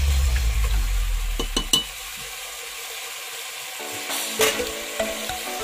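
Mutton curry sizzling in a steaming metal pot while a spoon stirs it, with a few light clinks of the spoon against the pot. There is a low rumble in the first two seconds, and the sizzling hiss is steady throughout.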